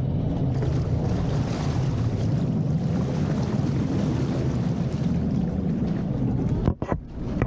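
Tour boat under way on a lake: a steady low rumble from the boat with water rushing past and wind buffeting the microphone. The sound drops out for a moment near the end.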